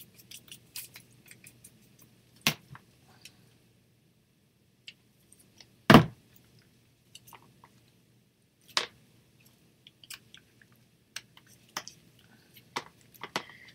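Small handling noises of craft supplies on a tabletop: faint paper rustles and scrapes, with a few sharp knocks as objects are picked up and set down, the loudest about six seconds in.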